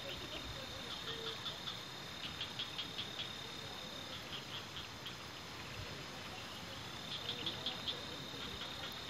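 Night insects chirping: a steady high-pitched trill with short runs of rapid chirps every couple of seconds, over a soft even patter of rain on the tent.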